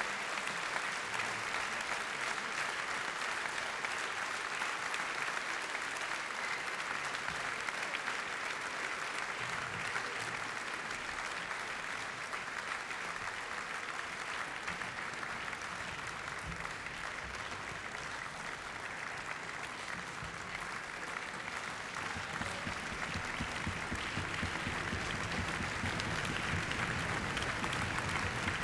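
Audience applauding steadily after an orchestral performance, easing a little past the middle and building again near the end.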